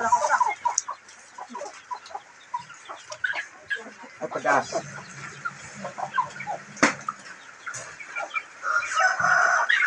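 Chickens clucking with short, scattered calls as they feed, and a sharp click about seven seconds in.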